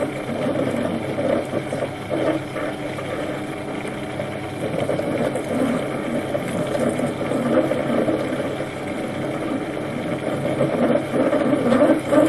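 Small metal lathe running steadily while a freshly sharpened stepped drill in the tailstock chuck cuts into a thin mild steel washer spinning in the chuck, a steady motor-and-gear hum with an uneven cutting sound over it that grows a little louder near the end.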